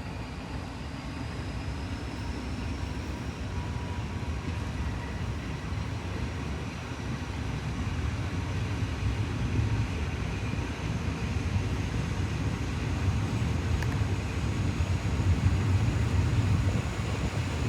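Train running with a low rumble that grows steadily louder, with a faint high whine rising slowly in pitch.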